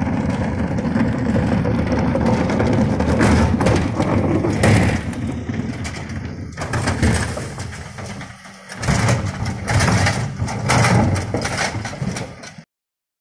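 Refuse truck's diesel engine running under load as the Geesinknorba Combi-split bin lifters raise, tip and lower two wheelie bins, with repeated clattering knocks of the bins on the lifter. The sound cuts off abruptly near the end.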